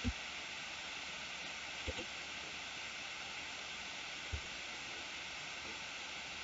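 Steady background hiss of a quiet room and microphone, with a few faint soft thumps: one at the start, one about two seconds in and one a little past four seconds.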